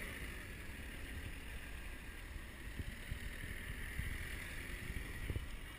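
Team support cars driving slowly past on a steep climb, a low engine hum with wind buffeting the microphone.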